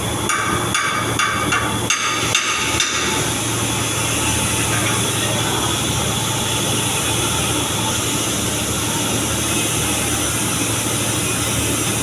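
A quick series of about seven sharp knocks in the first three seconds, then steady background noise with a low hum.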